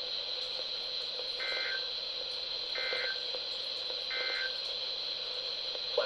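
Three short bursts of Emergency Alert System SAME data tones, the warbling end-of-message code, about 1.3 seconds apart, from a RadioShack Public Alert weather radio's speaker. A steady high-pitched whine runs under them.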